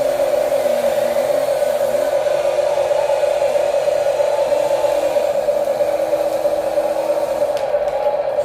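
Small electric motors and gearboxes of radio-controlled toy construction machines whirring with a steady whine, and a lower motor tone that shifts in pitch as they work.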